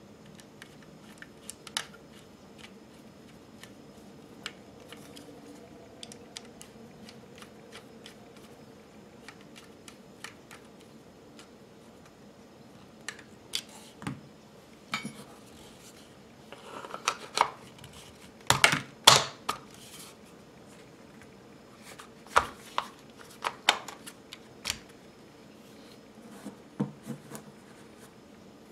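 Clicks and clacks of BRS-99 carbine parts being handled and fitted together during reassembly: sparse light ticks at first, then bursts of louder clacks about halfway through and again a few seconds later.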